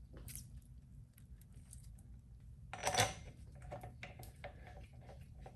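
Hands working on a cast-aluminium rear differential housing: faint scattered clicks and taps as the axle seals are pressed in and the case is handled, with one louder knock about three seconds in.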